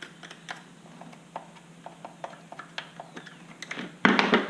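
Light clicks and taps from a chainsaw and tools being handled, with a short, louder rush of noise about four seconds in.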